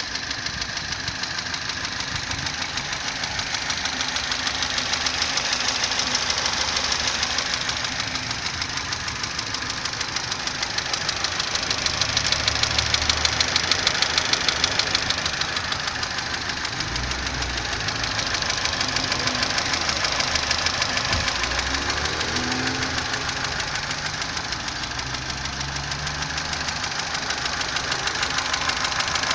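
Opel Astra H 1.4 petrol engine running with a rapid, steady diesel-like clatter, the knock that the owner is recording.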